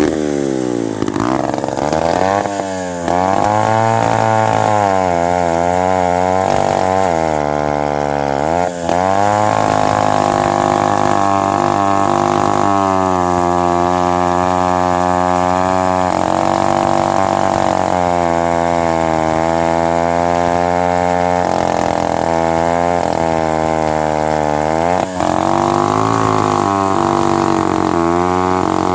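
Mid-1950s Lombard 35 gear-drive two-stroke chainsaw running hard through seasoned maple, its engine note repeatedly dropping and climbing back again, with sharp dips about three, nine and twenty-five seconds in.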